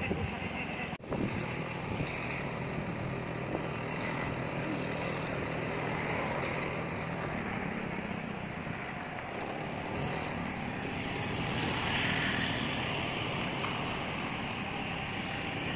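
Steady hum of road traffic, a continuous wash of passing cars, with a brief dip about a second in.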